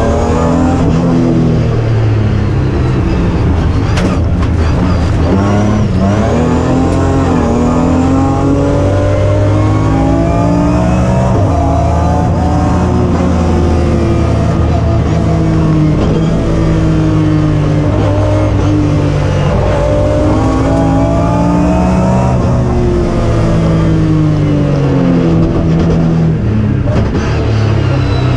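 BMW rally car's engine heard from inside the cockpit, revving hard up through the gears, its pitch rising in long sweeps and falling back at each shift or lift every few seconds. A sharp knock about four seconds in.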